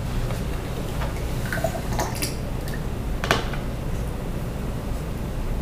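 Light clicks and taps of a paintbrush against a watercolour paint tray and being set down, with one sharper tap a little past three seconds in, over a steady low hum.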